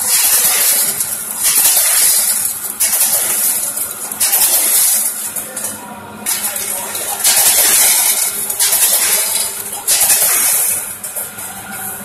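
Multihead weigher running on disposable plastic needles: the needles rattle in repeated surges, each about a second long, roughly every second and a half, as the vibrating feed pans pulse them into the weigh buckets.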